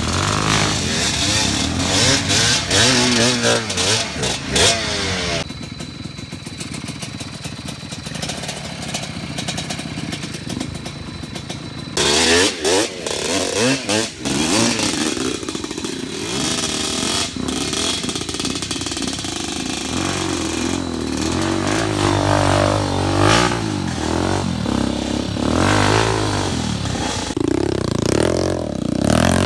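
Enduro dirt bike engine revving up and down in repeated swells, with some clatter, as the bike works along a slippery trail.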